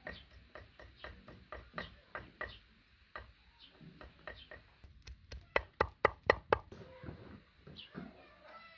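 Chopping on a wooden stump used as a chopping block: a run of steady knocks, about three to four a second, then a louder run of six sharp knocks about halfway through, easing off to fainter knocks near the end.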